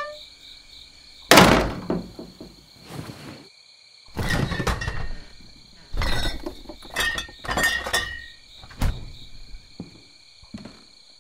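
A heavy thunk about a second in, followed by several bouts of knocking and clattering thuds and a single sharp knock later on, with a faint steady high tone underneath.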